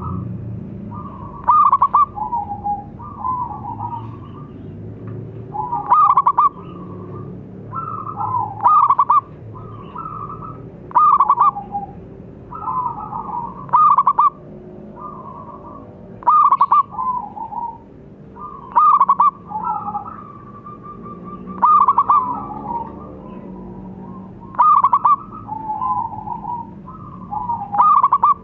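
Zebra dove (perkutut) cooing: a short trilled phrase of quick staccato notes, repeated about every two to three seconds.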